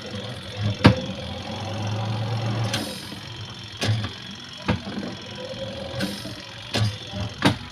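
Sharp clicks and knocks from handling a twin-tub washing machine's spin dryer during repair, the loudest about a second in, with a low hum lasting about a second from around one and a half seconds in.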